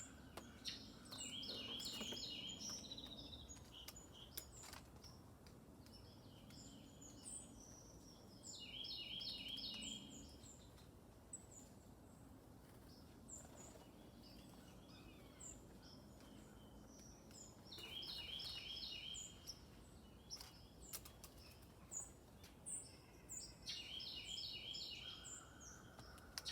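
Small songbirds calling: four times, a quick run of repeated notes lasting about a second and a half, with faint high chips between.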